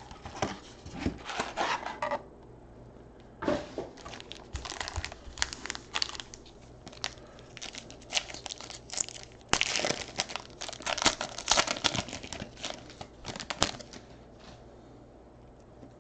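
Foil trading-card pack wrappers crinkling and tearing in irregular bursts as packs are handled and one is ripped open. The crinkling dies down about two seconds before the end.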